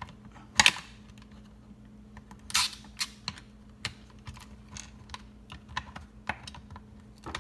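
Flat-head screwdriver prying brittle, disintegrated plastic spindles out of a pool vacuum head's roller mount: a string of sharp plastic clicks and snaps. The two loudest come about half a second in and about two and a half seconds in, with lighter clicks scattered between and after.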